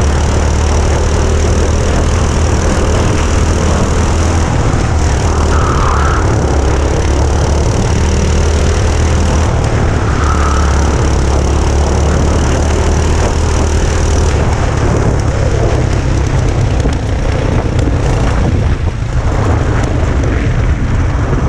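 Go-kart engines running at race speed, a loud, steady drone with a hiss above it that shifts a few times as the karts lap.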